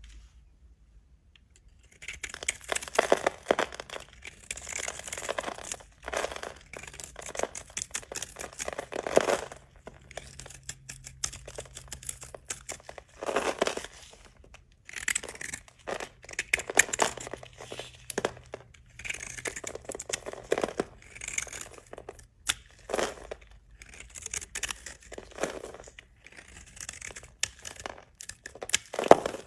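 Knife cutting through dry bar soap: a series of crunching, crackling cuts, one every second or two, starting about two seconds in.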